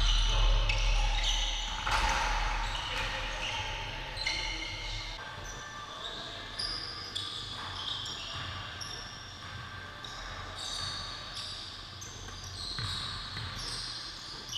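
Basketball sneakers squeaking in short, high-pitched chirps on a hardwood gym floor during full-court play, with a basketball bouncing and thumping now and then.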